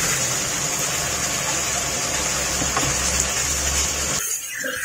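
Chicken and tomato masala sizzling and bubbling in a karahi as a spatula stirs and mashes the tomatoes, a steady hiss with a low hum underneath. It cuts off abruptly near the end.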